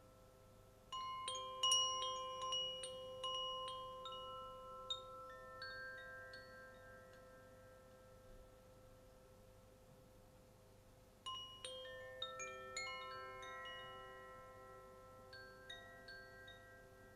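Hand-held cylindrical chime, moved by hand twice. Each time it gives a run of bright ringing notes that overlap and slowly die away, the first about a second in and the second about eleven seconds in.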